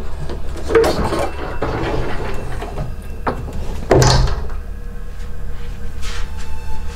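Wooden door knocks and bumps over a steady low hum, with one louder thud about four seconds in.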